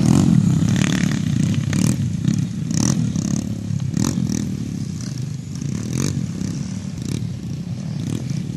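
Dirt bike engines running as the motocross bikes pull away, growing quieter as they ride off across the field, with scattered sharp clicks.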